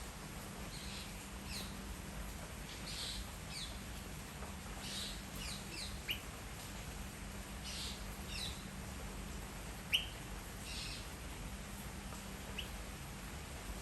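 White-breasted waterhen chick chirping: short, high peeping notes, some sliding downward, repeated irregularly and often in quick pairs or triplets.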